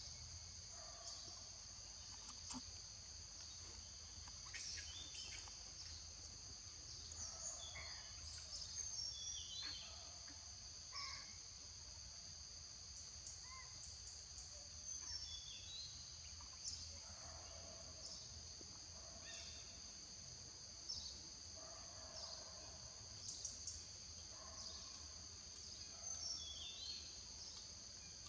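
Forest ambience: a steady high-pitched insect drone, with short bird calls scattered through it.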